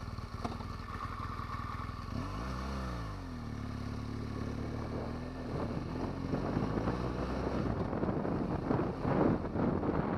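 BMW R1200GS boxer-twin engine running, blipped up and back down once about two seconds in, then rising in pitch as the bike pulls away. The sound gets rougher and noisier over the last few seconds as it gets under way.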